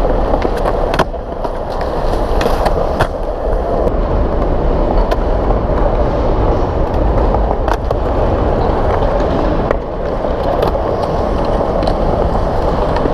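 Skateboard wheels rolling on concrete: a steady rumble, broken by a scatter of sharp clacks every second or two.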